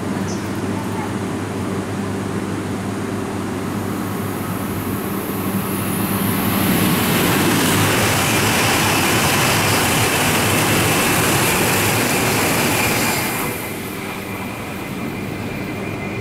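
Tohoku Shinkansen E5+E6 coupled train passing through the station at high speed: a rushing roar of wind and rail noise that builds about five seconds in, stays loud for about six seconds, then drops off suddenly. A steady low hum underlies it.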